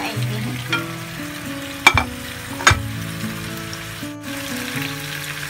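Fried milkfish pieces sizzling as they are tipped from a ceramic plate into a hot non-stick frying pan, with about three sharp clinks of the plate against the pan in the first few seconds. Background music with held notes plays underneath.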